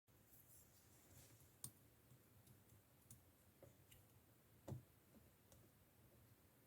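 Faint, scattered clicks and small pops from stiff slime being handled, a few seconds apart, over near silence; the clearest comes a little past the middle.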